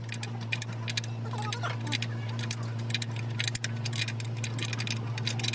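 A steady low hum under rapid, irregular light metallic clicks and taps, several a second.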